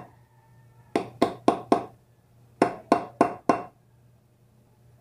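Claw hammer striking a driver held on a bicycle hub, two quick runs of four blows each, tapping a new bearing into the hub.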